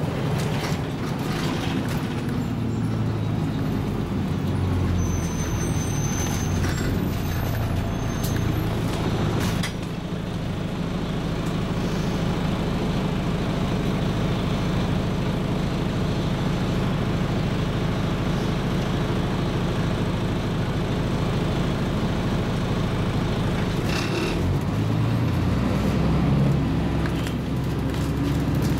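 Scania MaxCi low-floor city bus's diesel engine running as the bus drives, heard from inside the passenger cabin with road and body noise; the engine note shifts up and down during the first ten seconds or so, then holds steady.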